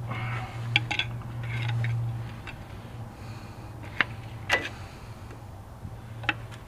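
A pry tool scraping and clinking against a Ford F150's vacuum (IWE) hub assembly as it is pried off the wheel end, with a few sharp metal clicks, over a steady low hum.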